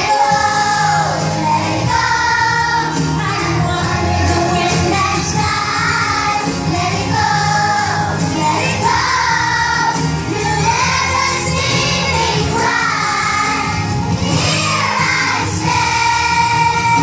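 A children's choir singing a song together over accompanying music.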